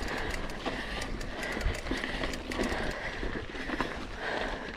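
Mountain bike rolling fast over a gravel trail: tyres crunching on loose stones and the bike rattling with many small clicks, with wind rumbling on the microphone. A steady high-pitched buzz runs underneath.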